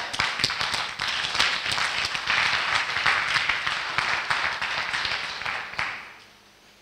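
A congregation clapping and applauding, many hands at once, which dies away about six seconds in.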